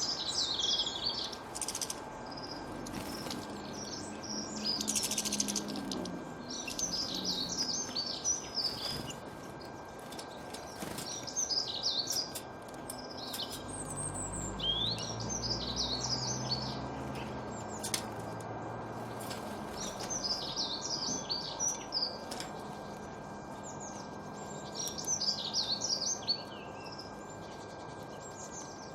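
Small songbirds chirping and twittering in short, quick phrases every couple of seconds over a steady outdoor background hiss.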